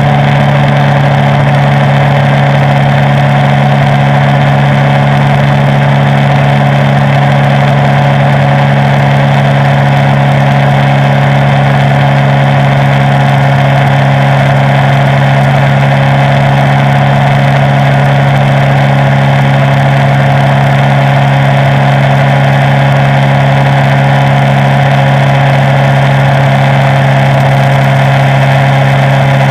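Suzuki inline-four motorcycle engine running at a steady cruising speed, holding one even pitch throughout, over a constant rush of wind and road noise.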